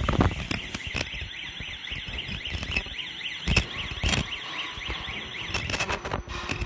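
Non-woven bag punching machine running: a high whine that rises and falls over and over, with scattered clicks and two louder knocks about three and a half and four seconds in.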